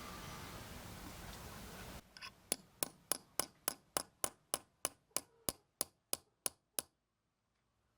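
Small hammer striking a metal spoon-lure blank: about fifteen sharp metallic taps, roughly three a second, that then stop.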